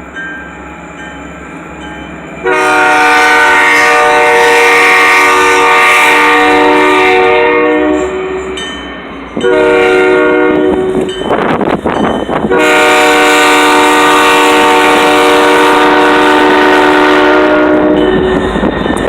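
Freight locomotive's multi-tone air horn sounding for a grade crossing: a faint blast at first, then loud long blasts, a shorter one and another long one as the train closes in. Near the end the rumble of the locomotive arriving rises under the horn.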